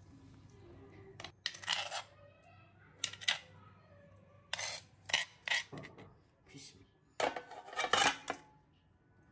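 Steel kitchenware clattering in about five separate knocks, some ringing briefly. The loudest and longest comes near the end, as raw fish steaks are slid off a steel plate into a metal pan.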